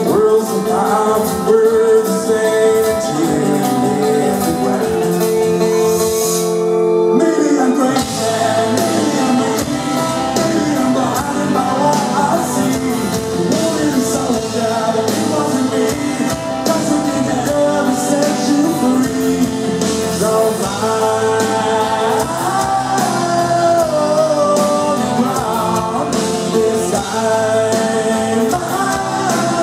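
Rock band playing live, with a male lead singer and electric guitar. About seven seconds in the band drops back briefly, then comes in full again.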